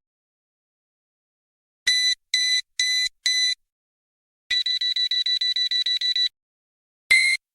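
Synthesized warning-alarm beeps in three patterns. After about two seconds of silence come four short beeps, then a rapid pulsing beep for nearly two seconds at about seven pulses a second, then another series of beeps beginning near the end.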